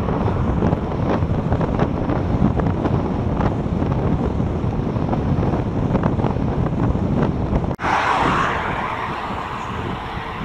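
Wind rushing over an action camera's microphone on a moving road bicycle. About three-quarters of the way through, the sound drops out for an instant and comes back as a brighter rush.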